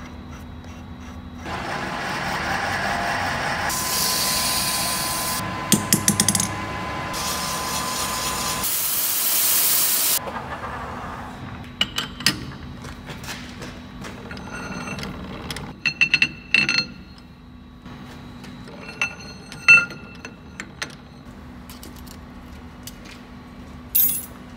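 A rushing hiss of air lasting several seconds, with two sharper, brighter blasts. After it come scattered light metallic clinks and taps of steel parts and tools on a lathe.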